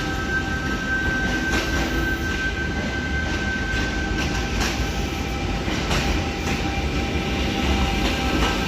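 V-set double-deck intercity electric train humming, with several steady whining tones over a low rumble and a few scattered clunks.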